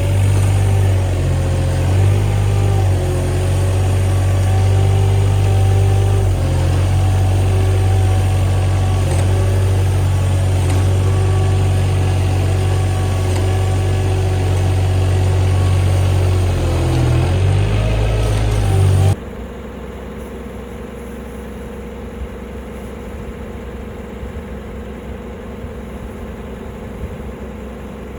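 A machine engine running steadily, its pitch drifting a little. About two-thirds of the way through it cuts off abruptly to a quieter, steady machine hum.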